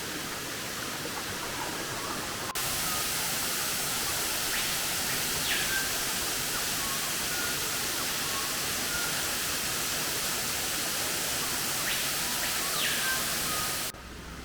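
A tall waterfall, about 200 feet high, pouring: a steady rushing hiss of falling water. It jumps louder about two and a half seconds in and drops off sharply near the end.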